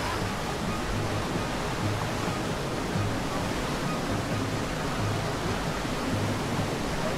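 Mountain stream running over limestone slabs, an even rushing hiss of water. A low bass pulse, typical of background music, comes and goes under it.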